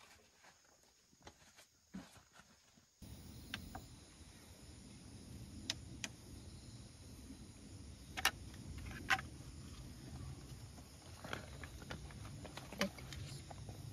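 Light clicks and small knocks from an electric air pump and its power cord being handled and fitted. A faint steady low background rumble sets in about three seconds in.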